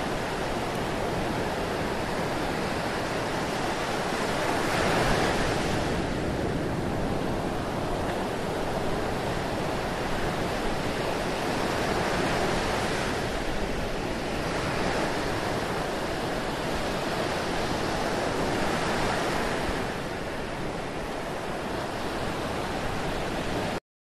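Ocean surf: waves breaking and washing in as a continuous rush, swelling about every seven seconds. It cuts off suddenly just before the end.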